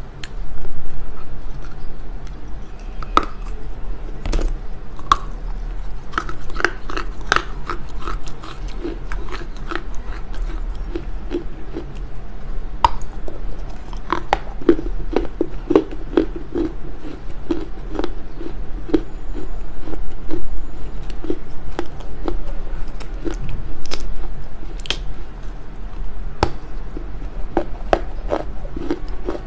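Smoked Chinese loess clay being bitten and chewed: sharp cracks as the dry clay snaps between the teeth, with steady chewing of about two strokes a second in between.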